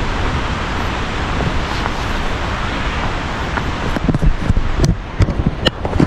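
Steady rushing noise of the Kuang Si waterfall, with a few irregular low thumps and clicks in the last two seconds.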